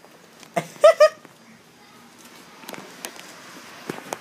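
Two short, high-pitched vocal calls about a second in, followed by faint room noise with a few light taps.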